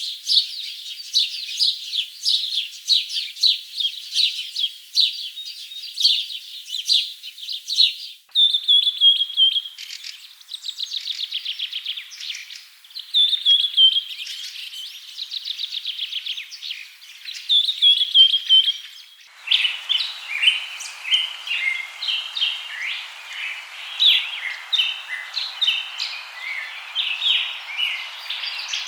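Several songbirds chirping and singing at once, fast overlapping chirps and short trills. The birdsong changes abruptly about 8 seconds in and again about 19 seconds in, and in the last part the chirps sit over a steady background hiss.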